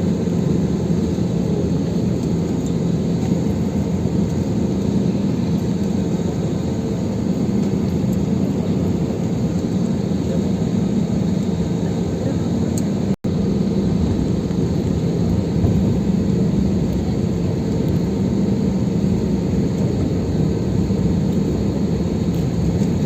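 Airliner jet engines running at taxi power, heard inside the passenger cabin as a steady low drone. It cuts out for an instant about 13 seconds in.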